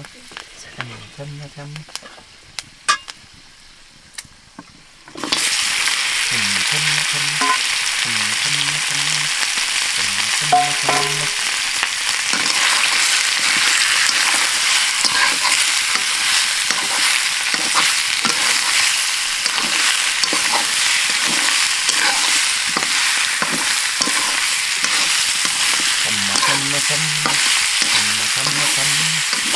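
Pieces of pork hitting hot oil in an iron kadai: after a few faint crackles of the heating oil, a loud sizzle starts suddenly about five seconds in and keeps going steadily as a metal spatula stirs and scrapes the meat around the pan.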